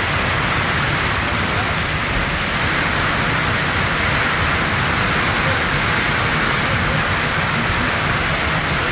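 Heavy rain pouring down steadily onto flooded paved ground, a loud, even hiss that does not let up.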